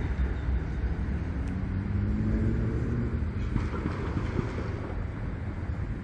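Steady low rumble of city traffic, with an engine tone rising faintly about two seconds in.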